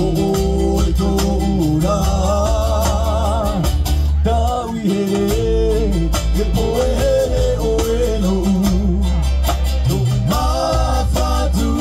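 A live band plays an upbeat song: several men sing over strummed acoustic guitar and ukuleles, with a steady bass line under a brisk, even strumming rhythm. The bass drops out for a moment about four and a half seconds in.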